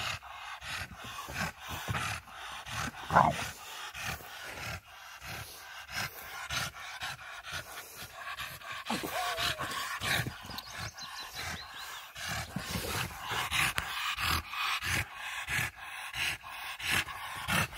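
Pocket American Bully dogs panting hard and fast with their tongues out, in an even run of quick breaths. One louder sound breaks in about three seconds in.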